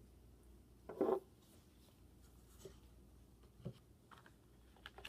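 Quiet handling noise from objects moved on a wooden tabletop: one short knock or rub about a second in, then a few faint taps and clicks.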